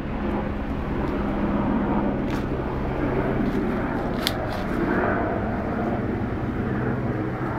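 A steady, engine-like rumble with a low hum, with two light clicks, about two and four seconds in.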